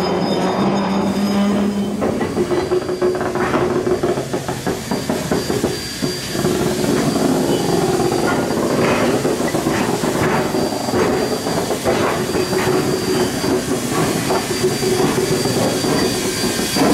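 Queensland Rail C16 class steam locomotive C16 106 standing in steam: a steady hiss of steam with a steady hum underneath, and irregular clanks and knocks throughout.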